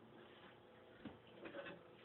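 Heritage Empire 52-inch ceiling fan running on low speed, heard faintly: a steady low buzzing hum from the motor, with a few soft ticks about a second in.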